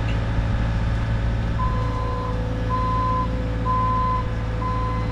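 Bobcat T66 compact track loader's diesel engine running steadily. A bit over a second in, its backup alarm starts beeping, four beeps about a second apart, as the loader reverses.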